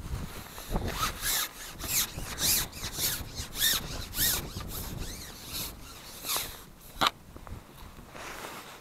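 Carbon fishing pole being shipped back, sliding and rubbing in a run of rough strokes about twice a second, with a single sharp click about seven seconds in.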